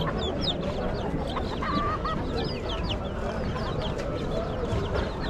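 Chickens clucking and calling, mixed with many short high chirps, over a steady background hubbub.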